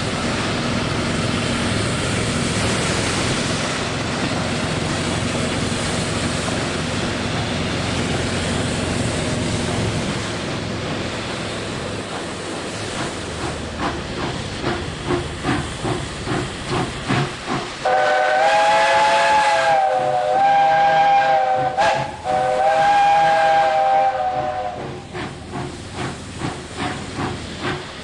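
Working steam locomotive: a steady hiss of steam, then a rhythm of exhaust chuffs. About 18 seconds in, a multi-note steam whistle sounds two long blasts with a short break between them, and after that the chuffing goes on.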